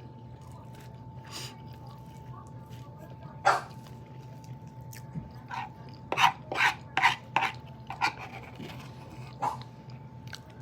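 A dog barking in short, sharp barks: one a few seconds in, then a quick run of four, then a couple more. A faint steady tone and a low hum run underneath.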